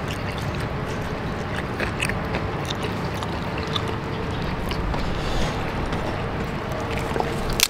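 Steady background noise with faint scattered clicks and rustles of hands picking at food.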